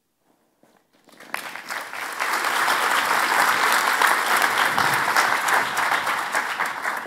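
Audience applauding, starting about a second in, building over the next second or so, holding steady, then beginning to fade near the end.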